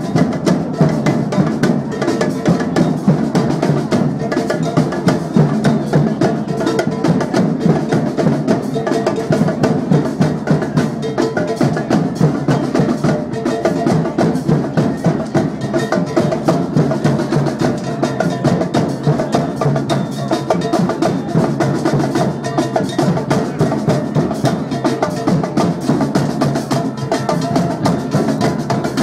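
Batucada drum group playing a fast, dense, steady rhythm on snare drums and bass drums.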